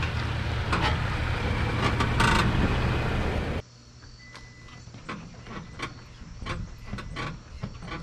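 Steady rushing noise for about three and a half seconds, then a sudden cut to repeated short squeaks and creaks from the 2022 Toyota Tacoma's front body mount as the cab is rocked by hand. The worn rubber body mount bushing is the source of the truck's front-end screeching.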